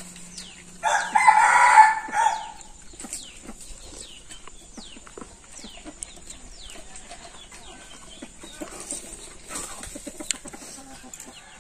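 A rooster crows once, about a second in, a loud call of about a second and a half. Small birds chirp with short falling calls throughout.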